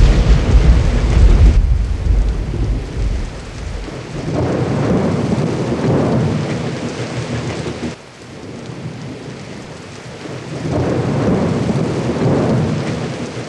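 Rain with rolling thunder: a heavy rumble at the start, then two more swells of thunder a few seconds apart.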